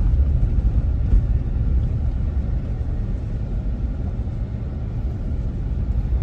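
Steady low rumble of a car driving, heard from inside the cabin: engine and tyre noise from the road, with a small knock about a second in.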